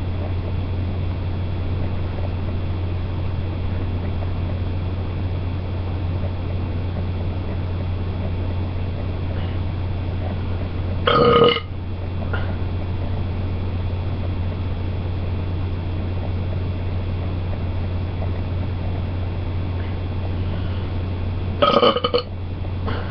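A person belching twice, once about 11 seconds in and again near the end, each belch short and loud, brought on by drinking carbonated Coca-Cola. A steady low hum runs underneath.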